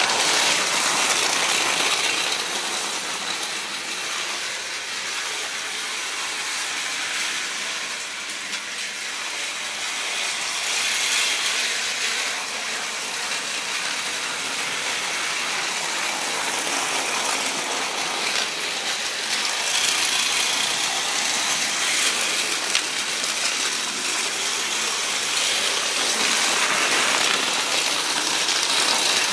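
Battery-powered Tomy Plarail 103 Series toy train running on plastic track: its small motor and gearbox whir with a rattling, clicking gear noise that grows louder and softer over the stretch.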